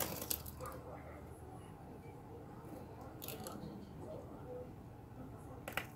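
Aldabra giant tortoise biting and chewing raw broccoli stem and cabbage, with crisp crunches at the start, again a little after three seconds, and near the end.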